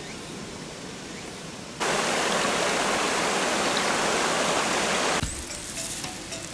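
Rushing water of a shallow rocky river and small stepped waterfall, a loud steady rush that starts suddenly about two seconds in and cuts off suddenly about five seconds in. Quieter outdoor background before it, and faint crackling from a tabletop charcoal grill near the end.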